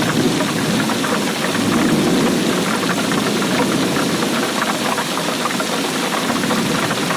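Heavy rain falling in dense, fast drops over a steady low rumble.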